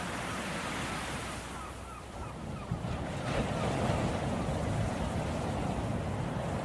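Ocean surf and wind, with a wave surging in about three seconds in. A faint series of short chirps sounds over the surf in the first three seconds.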